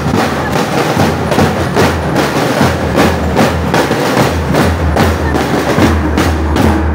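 Marching drum corps of snare drums and bass drums playing a steady, driving beat, with sharp stick strokes and a steady low rumble underneath.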